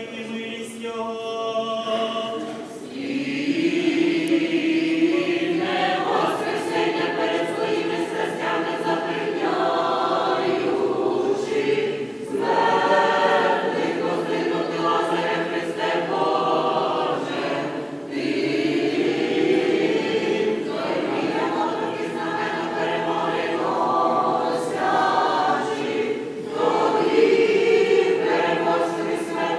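Church choir singing Byzantine-rite liturgical chant unaccompanied, several voices in harmony, in long phrases with short breaks between them.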